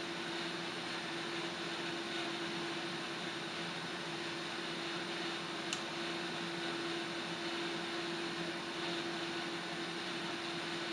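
Steady hiss of water heating in a kettle on a lit gas stove burner, with a constant low hum beneath it and one faint click about halfway through.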